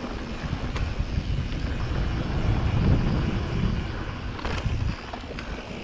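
Wind buffeting the camera microphone and tyres rumbling over a dirt trail as a downhill mountain bike rolls along, with a few sharp clicks and rattles from the bike over bumps.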